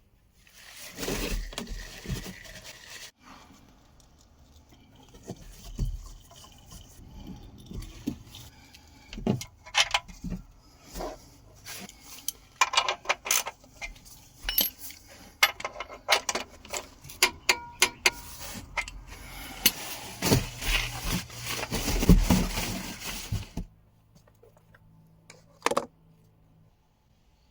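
Small metal objects clinking, rattling and scraping, tools or parts being handled in many short sharp knocks with some ringing. It stops about 24 seconds in.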